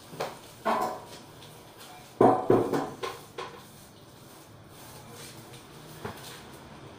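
Broom sweeping stair steps: a few short swishing strokes, the loudest pair about two to three seconds in, and a last light one near the end.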